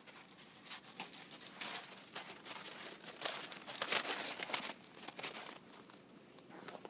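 A small dog's quick footfalls pattering and crunching through snow, loudest about three to five seconds in.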